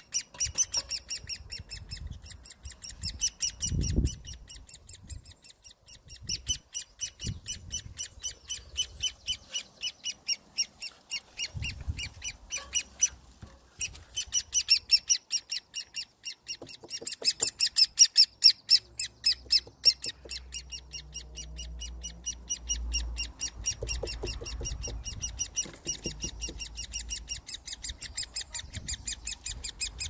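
Great spotted woodpecker chick begging from inside its nest hole: a rapid, regular run of short, high calls, about four a second. The calls pause briefly about thirteen seconds in. Begging calls like these are the sign of a hungry nestling calling for food.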